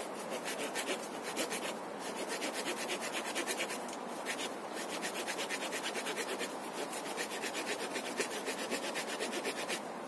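Small wood-saw blade of a Leatherman Wave multi-tool cutting through a tree branch. It goes in quick, even back-and-forth rasping strokes, in several runs broken by short pauses.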